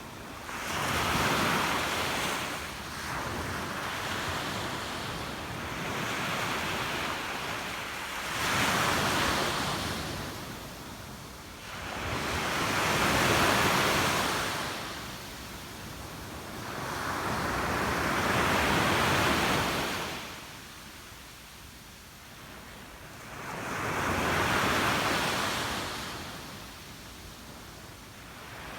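Sea waves breaking on the shore and washing back, one surge every five or six seconds, with some wind on the microphone.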